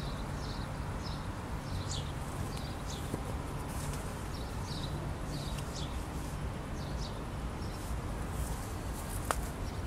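Small birds chirping in short, repeated notes over a low, steady background rumble, with one sharp click about nine seconds in.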